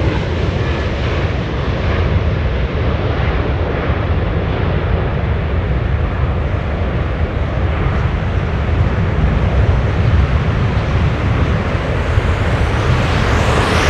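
Jet airliner engines running with a loud, steady rumble, the sound growing brighter near the end.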